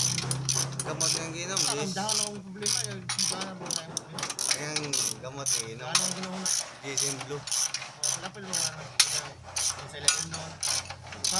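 Hand socket ratchet wrench clicking in rapid, uneven runs as a nut or bolt is turned.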